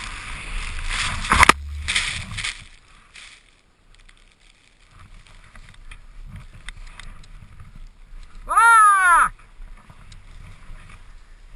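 A Ski-Doo E-TEC two-stroke snowmobile engine running hard in deep snow, with a sharp knock about a second and a half in as the sled goes over, then the engine noise cuts out. Faint snow rustling follows, and near the end comes a brief loud tone that rises and falls.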